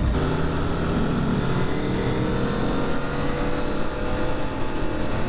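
Motorcycle engine running under way, its note climbing slightly over the first few seconds and then holding steady, with rushing wind noise on the rider's microphone.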